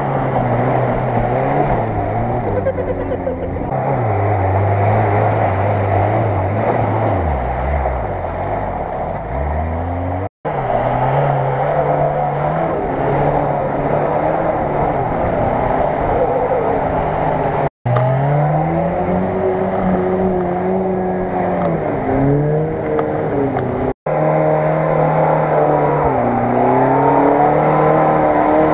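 Lada Niva engine revving up and down as the car churns through deep mud, the pitch rising and falling with the throttle. The sound breaks off for an instant three times where separate takes are joined.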